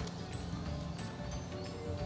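Quiet background music with steady held notes and a low bass line.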